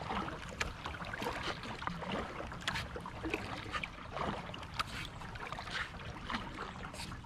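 Kayak paddle dipping into calm river water, with small irregular splashes and drips.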